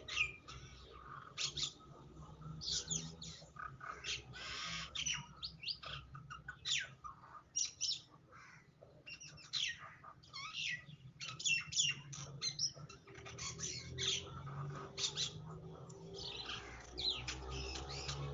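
Birds chirping: many short, high, quickly gliding calls throughout, over a low steady hum.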